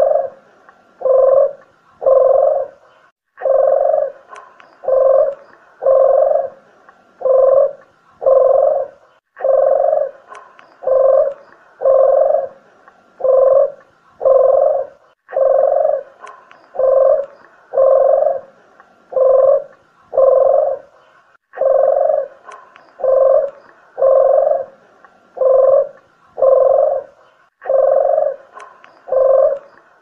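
Spotted dove (tekukur) cooing, played as a hunting lure call. Short, low coos come about one a second in phrases of five or six, with a brief pause about every six seconds.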